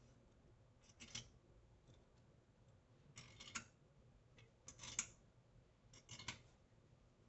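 Hand tools clicking against metal while working the case bolts of a 2024 Yamaha GP HO engine during reassembly: four short, faint bursts of quick clicks, about a second apart or more.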